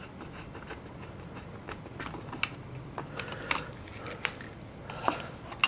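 Light clicks and taps of fingers handling a KST X10 Mini wing servo in its plastic mounting frame, with a handful of sharper clicks in the second half.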